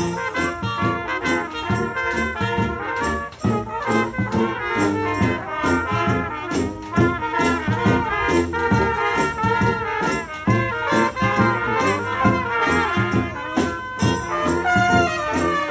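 Street band playing live, with trumpets and trombones carrying the tune over percussion that keeps a steady beat.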